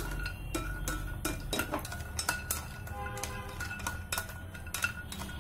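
A wooden spatula stirring cashews roasting in a little ghee in a stainless steel pan: irregular knocks and scrapes against the metal.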